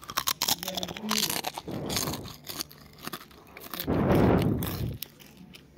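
Potato chips being bitten and chewed: a run of sharp, crisp crunches, with a louder burst of noise lasting about a second near the end.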